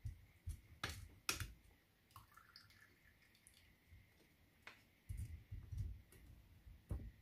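Wooden spoon squeezing fresh mint leaves in a stainless steel mesh strainer, faint soft scraping with a few sharp clicks of wood on metal and some low knocks as the strainer is handled.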